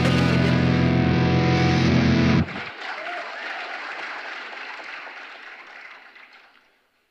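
Music with a held guitar chord that cuts off abruptly about two and a half seconds in, followed by audience applause that fades out.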